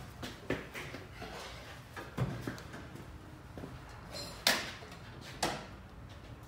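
A few separate sharp clicks and knocks of things handled in a workshop, the loudest about four and a half seconds in and another about a second later.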